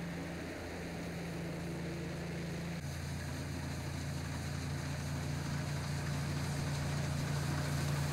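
Massey Ferguson combine harvester running steadily while harvesting: a low, even engine hum over machinery noise. The pitch of the hum shifts slightly about three seconds in.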